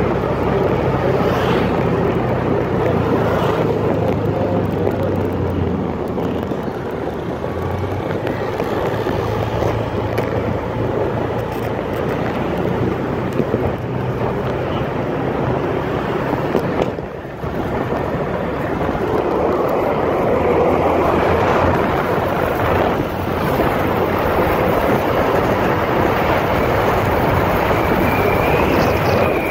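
Wind buffeting the microphone over a motor scooter's engine running steadily while riding along a road.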